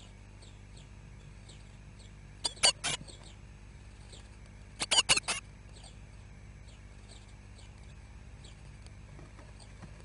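Blue tit nestlings calling inside the nest box: two short bursts of rapid, high chirping, about two and a half seconds apart, over faint thin high calls that repeat every half second or so. A steady low hum lies underneath.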